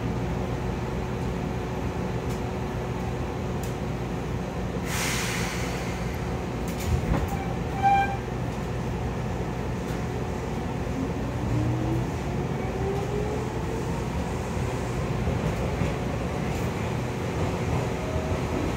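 Interior of a Seibu 2000 series electric train pulling away under field-chopper control: a hiss of air about five seconds in, a short tone near eight seconds, then the traction motors' whine rising steadily in pitch as the train accelerates over the running rumble.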